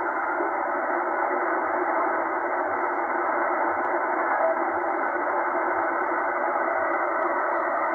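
Steady static hiss from a Tecsun H-501X shortwave receiver in upper-sideband mode, narrowed to the SSB filter's thin voice-band passband, as it is tuned across the aeronautical band between stations with no signal coming through.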